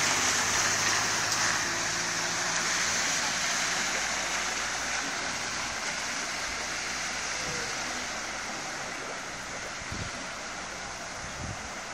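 A Mercedes-Benz panel van driving away through shallow floodwater: its tyres hiss and splash on the flooded road over a low engine note, and the sound fades steadily as it moves off.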